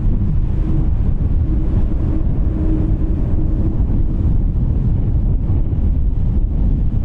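Steady low rumble of a jet airliner's engines mixed with wind buffeting the microphone, with a faint steady hum standing out for a few seconds about a second in.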